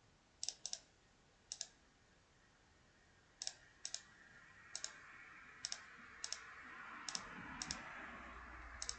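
Faint computer mouse clicks, about ten of them at irregular intervals, each heard as a quick double tick of press and release, over a faint background hiss.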